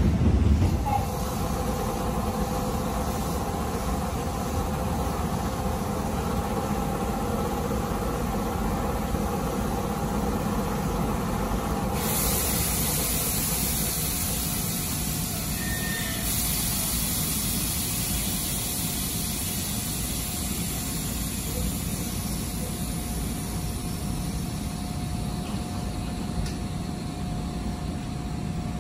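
Electric commuter train standing at a station platform, a Keisei 3500-series, with its onboard equipment giving a steady hum and a faint steady tone. About twelve seconds in, a steady high hiss joins it.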